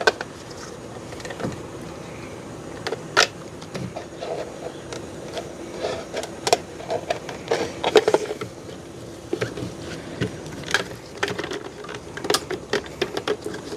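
Irregular clicks and knocks of fuel pump assembly parts being handled and pushed back together by hand, over a faint steady hum.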